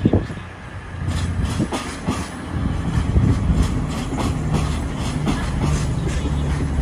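East Midlands Railway Class 222 Meridian diesel multiple unit moving along the platform: a steady low hum from its underfloor diesel engines builds from about three seconds in, with repeated wheel clicks over the rail joints. A brief thump right at the start.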